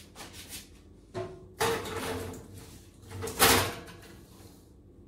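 Metal springform cake pan being set onto an oven's wire rack and slid in: scraping and clattering, with the loudest clunk about three and a half seconds in.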